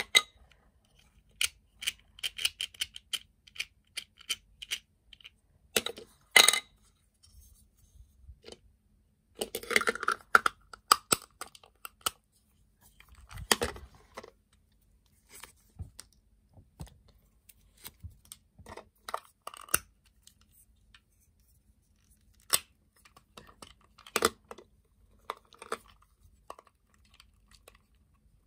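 Small plastic parts of a toy electric train being handled: irregular clicks, taps and short scraping rustles, scattered and spaced apart, the sharpest click about six seconds in.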